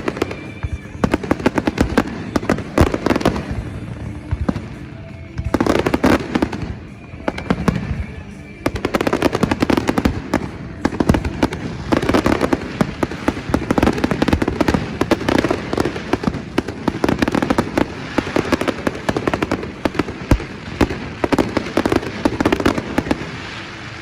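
Fireworks going off in rapid, dense volleys of bangs and crackles, with a song playing underneath; the barrage thickens from about a third of the way in and drops away right at the end.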